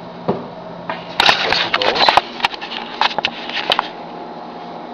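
Close handling noise: irregular rustling and sharp clicks right at the microphone, in two clusters from about a second in to near the end, as the camera and a bottle cap are handled close up.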